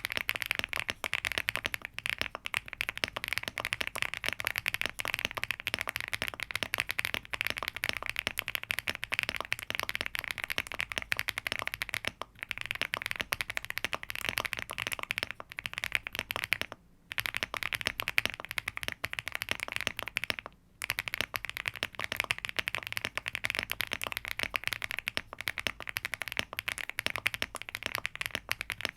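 Rapid typing on a Rainy75 mechanical keyboard built with HMX Catmint switches, an FR4 plate, full foam and PBT dye-sub keycaps: a dense stream of keystrokes, broken by three brief pauses.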